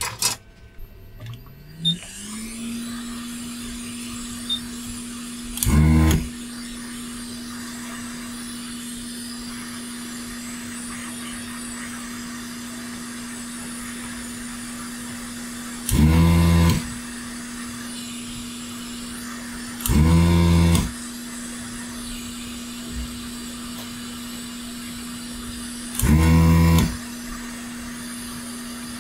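Hot air rework station's blower spinning up, its hum rising in pitch over a second or so, then blowing steadily with a constant hum and rushing air. Four short, loud electric buzzes, each under a second, cut in about 6, 16, 20 and 26 seconds in.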